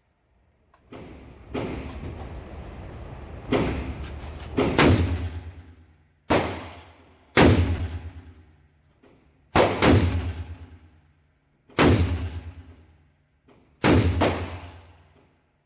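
A series of rifle shots from a 10.5-inch AR-15 firing .223 FMJ, about eight in all, one every second or two. Each is a sharp crack that trails off over about a second.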